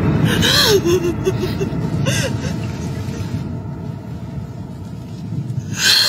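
Women sobbing and gasping, in short broken bursts of voice, with a louder falling wail near the end, over a low steady rumble.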